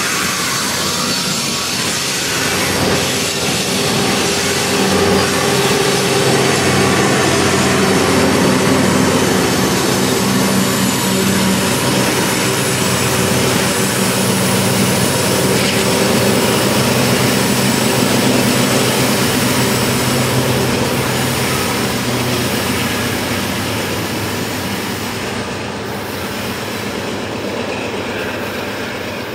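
Loaded Union Pacific coal trains climbing a grade: diesel locomotive engines working under load with a steady drone, over the rumble of the loaded coal cars rolling on the rails. The sound eases off a little near the end.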